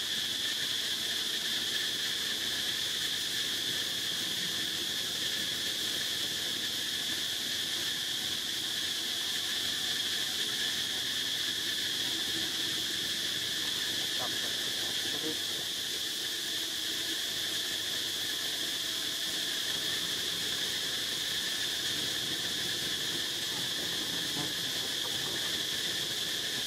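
Steady insect chorus, an unbroken high-pitched drone that holds the same pitch and level, with a fainter lower tone beneath it.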